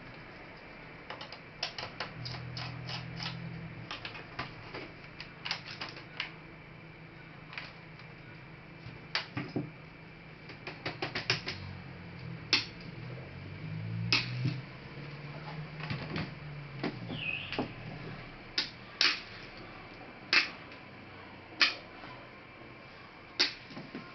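Irregular sharp clicks and taps of small hand tools and plastic parts on a laptop case being taken apart, with a low hum that comes and goes twice.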